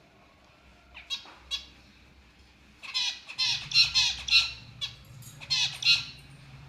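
Lovebirds squawking: two short calls about a second in, then a run of loud, harsh shrieks from about three to six seconds in.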